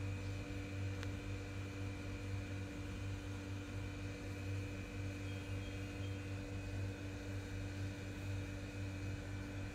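Steady low machine hum with a light hiss, unchanging throughout, and a faint click about a second in.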